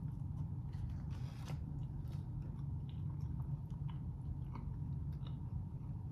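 Close-up chewing of a double cheeseburger: small wet mouth clicks and smacks over a steady low hum.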